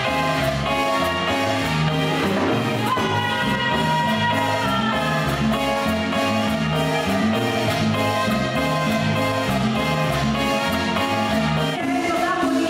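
Latin dance band music with a steady beat, a moving bass line and held melody notes.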